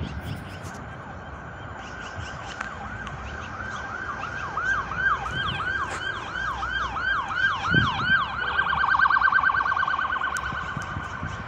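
Emergency vehicle siren sounding a repeating swooping wail of about two swoops a second, switching about three-quarters of the way through to a fast warble, then fading.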